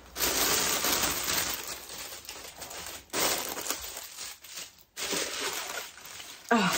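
Tissue paper crinkling and rustling as it is handled and pulled up out of a box. It comes in three bouts with short breaks between them.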